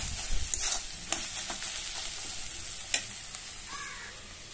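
Sliced onion, tomato and capsicum masala sizzling in oil in a steel kadai, with a few sharp knocks of the spatula against the pan. The sizzle dies down gradually.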